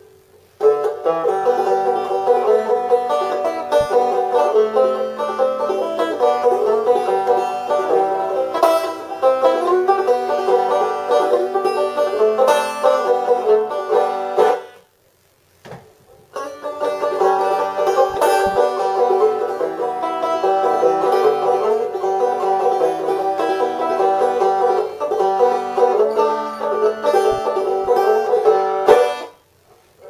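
Walking-stick banjo being picked, a run of quick plucked notes. The playing stops for about two seconds around the middle, then starts again and stops shortly before the end.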